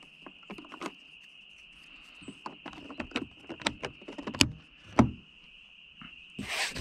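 Irregular clicks and knocks of hand tools and plastic door trim being handled while a car door panel is put back on, with two louder knocks about four and a half and five seconds in. Near the end a short rubbing sound begins.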